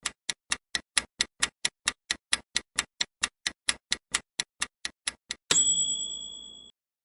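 Countdown-timer sound effect: a clock ticks rapidly, about five ticks a second. About five and a half seconds in, a bell-like ding rings out, marking that the answer time has run out. It fades and cuts off after about a second.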